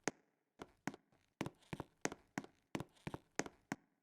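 Subway train wheels clicking over a rail joint, the axles striking in pairs, a rhythmic clickety-clack of a train rolling in at low speed.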